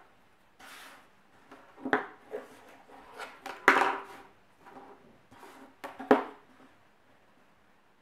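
Card paper and a plastic ruler being handled on a tabletop: a brief sliding rustle, then several sharp knocks and clatters as the ruler is picked up and set down, the loudest about three and a half seconds in.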